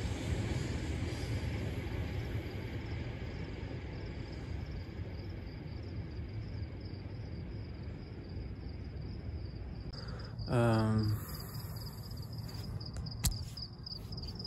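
A cricket chirping steadily in a fast high-pitched trill, over a low vehicle rumble that dies away over the first few seconds. About ten seconds in, a short loud low-pitched tone rises briefly above it, followed a couple of seconds later by a single sharp click.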